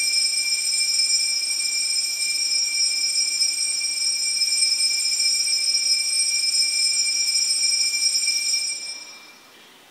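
Altar bell ringing steadily and without break for about nine seconds, then dying away near the end: the consecration bell rung while the host is elevated.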